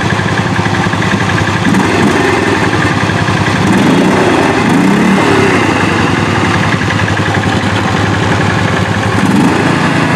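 Small engines of a four-wheeler and a riding lawn mower running together, the pitch rising and falling a few times as the throttle changes.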